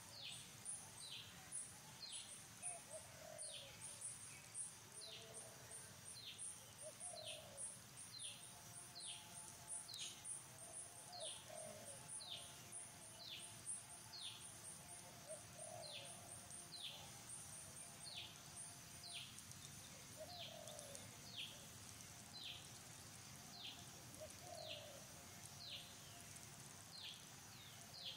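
Faint forest ambience: a bird repeats a short falling call about once a second, over a fast pulsing high-pitched buzz that stops about two-thirds of the way through, with soft low cooing calls now and then.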